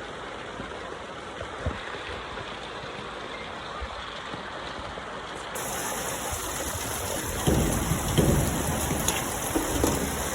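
Heavy steady rain pouring down, with louder low rumbling bursts in the last few seconds.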